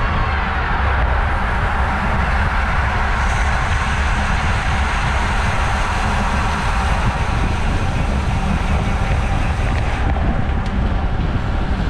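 Steady wind rushing over the microphone of a camera mounted on a road bicycle moving at about 26 mph, heaviest in the low rumble, with tyre and road noise underneath.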